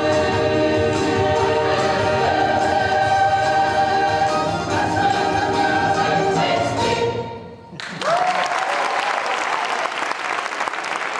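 Large mixed choir singing, ending on a held chord that cuts off about seven and a half seconds in. The audience then bursts into applause, with a whoop at the start.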